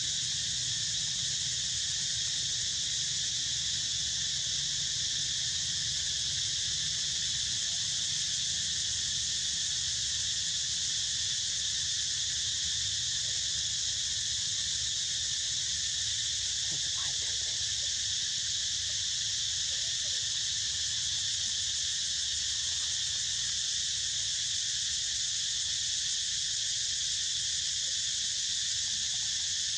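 Steady, high-pitched chorus of insects buzzing without a break, over a low steady rumble.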